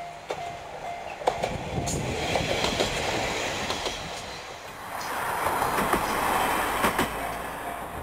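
Japanese level-crossing warning bell clanging at about two and a half strikes a second, soon drowned out as a JR Shikoku local diesel railcar runs past the crossing. The train's rumble builds and is loudest in the second half, with wheels clacking over rail joints about once a second.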